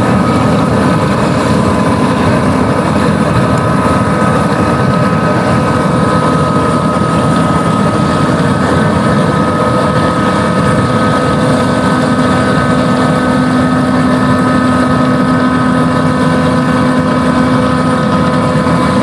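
Farm harvesting machinery running steadily: a loud, even engine drone with several steady whining tones held over it.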